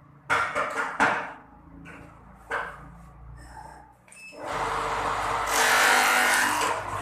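Three sharp knocks, then a loud, even rasping noise of a tool or machine at work starting about four and a half seconds in.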